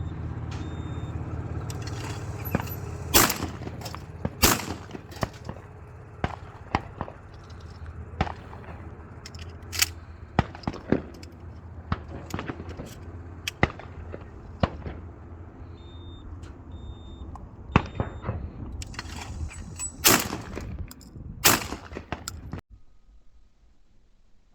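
Shotgun shots: two loud pairs, the shots of each pair about a second and a half apart, a few seconds in and again near the end, with fainter shots and clicks between them over a low steady rumble. The sound cuts off abruptly near the end.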